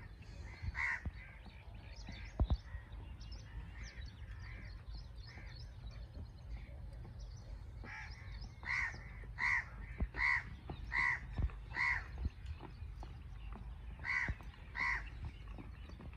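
A crow cawing in a run of short, harsh calls, most of them in a burst about halfway through and two more near the end. A single dull thump comes about two and a half seconds in.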